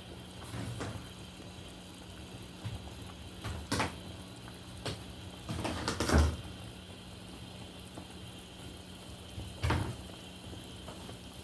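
A few scattered knocks and clunks of kitchen handling, the loudest about six seconds in and another near the end, over a faint steady hum.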